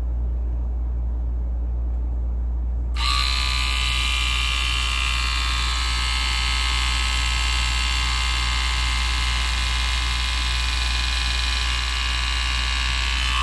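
Split Ender Pro 2 split-end trimmer's small electric motor and rotating cutting blade running steadily as a section of hair passes through it. It switches on about three seconds in and off at the very end.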